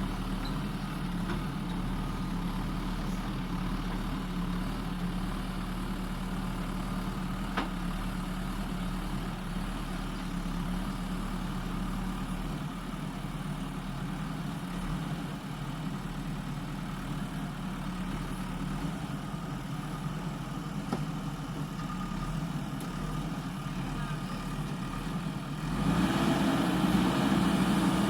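JCB 3DX backhoe loader's diesel engine running steadily at low revs. About two seconds before the end it revs up, louder and higher.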